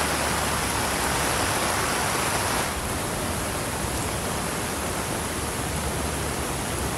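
Muddy runoff water pouring down a hillside onto the road in torrential typhoon rain: a steady rushing noise of water. About three seconds in it changes to a flatter, even hiss of heavy rain and water running across the road surface.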